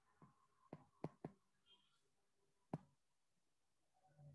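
Faint stylus taps on a tablet screen while handwriting a word: about five short, sharp clicks at irregular intervals, with near silence between them.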